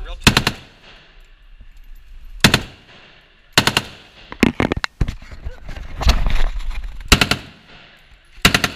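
AK-47 rifle firing a series of short automatic bursts, each of a few rapid shots, echoing off the walls of an indoor range.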